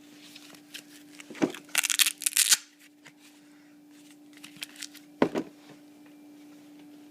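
Tool-kit items being handled and set down: a click, a short burst of rattling and rustling about two seconds in, and a single knock about five seconds in, over a faint steady hum.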